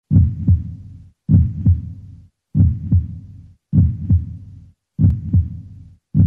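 Heartbeat sound effect: deep lub-dub double thumps, about one pair every 1.2 seconds, five pairs in a row.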